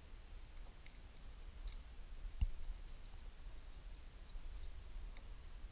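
A few faint, scattered clicks and ticks of fingers handling small parts at the bottom edge of an HP laptop's display lid, one a little sharper about midway, over a low steady hum.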